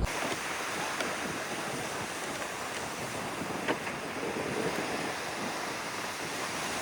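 Sea surf washing ashore, a steady rush of waves.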